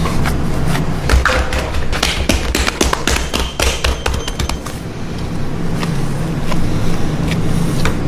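Gloved hands kneading and pressing ground beef in a stainless steel bowl: irregular thuds and taps of meat against meat and bowl, over a steady low hum.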